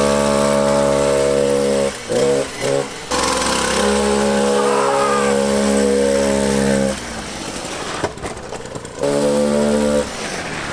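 70cc two-stroke chainsaw engine driving a ride-on toy car, running at steady high revs with a buzzing drone. It breaks off and picks up again a few times.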